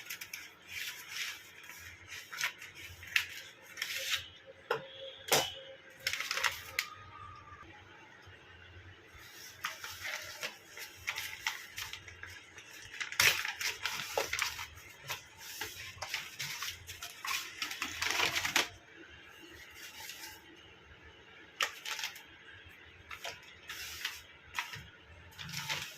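A cardboard product box being handled and opened by hand: irregular scraping and rustling of cardboard with scattered clicks and light knocks, busiest in a few clusters.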